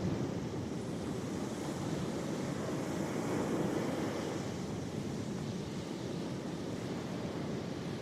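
Ocean waves washing ashore in a steady, even surf.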